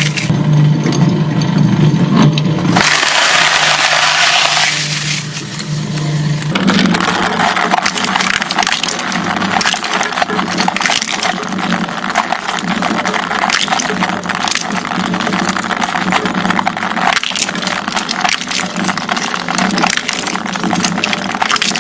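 A motor runs with a steady hum under a dense hiss like spraying water, with scattered small clicks. The sound changes abruptly a few times in the first seven seconds.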